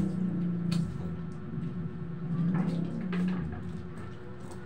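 A wall-mounted electric fan's steady low hum, louder in two swells, with a few sharp small clicks and taps of hands and plates during a meal.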